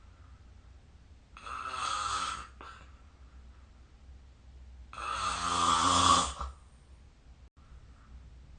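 A person snoring in sleep: two snores about three and a half seconds apart, the second louder and longer.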